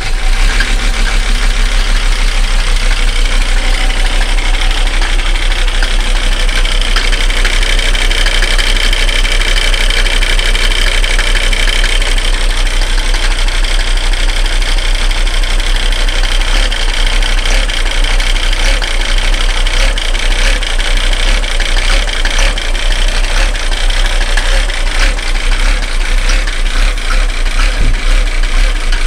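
1990 Mercedes-Benz 300D 2.5 Turbo's five-cylinder turbo diesel idling with a steady, rapid diesel clatter just after a cold start.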